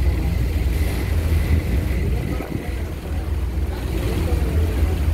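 Steady low rumble on the open deck of the moving Staten Island Ferry: wind buffeting the microphone, mixed with the ferry's engine.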